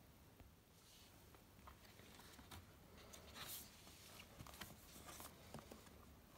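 Faint paper rustling and light taps as a picture book is handled, opened and its pages turned.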